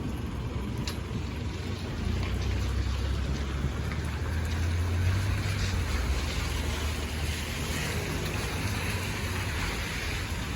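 Doctor Yellow Shinkansen inspection train rolling slowly over a level crossing: a steady low rumble with a noisy hiss on top, swelling about two seconds in and easing off toward the end.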